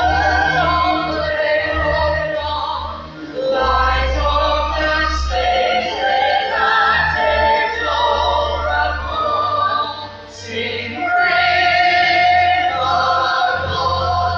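A small mixed group of young men and women singing together in harmony, the phrases broken by brief pauses about three and ten seconds in.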